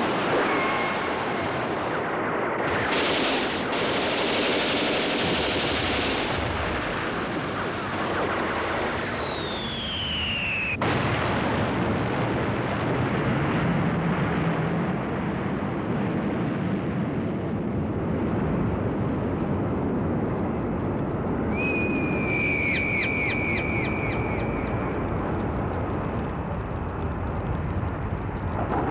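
Cartoon war sound effects: a steady din of explosions and gunfire. A bomb's whistle falls in pitch for about two seconds and cuts off in a blast, and later a high wavering tone rings for a few seconds over the rumble.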